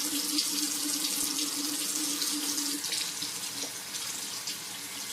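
Tap water running steadily into a sink as a Rockwell 6C safety razor, its handle backed off a couple of turns so the base plate sits loose, is rinsed under it to flush out clogged hair conditioner. A faint steady hum stops about three seconds in.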